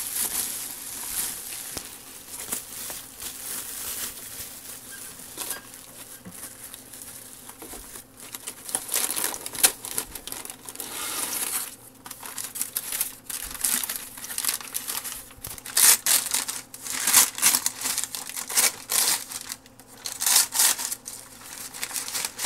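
Packing material being handled: plastic bubble wrap rustling, then brown packing paper crinkling as a computer part is unwrapped. It comes in irregular bursts that grow busier and louder after the first third.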